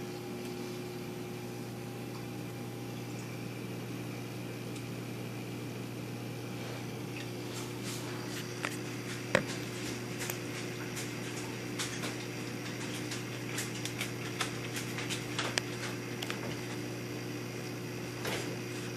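Steady hum of a running reef aquarium's pumps, including a powerhead wavemaker, holding a low droning tone. About halfway through, scattered light clicks join it.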